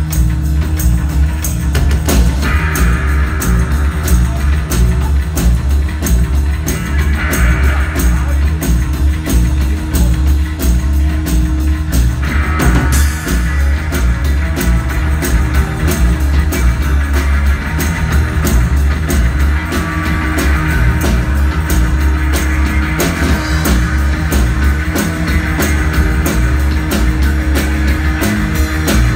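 Live rock band playing: electric guitars, keyboards, bass and a drum kit keeping a steady beat, with heavy bass.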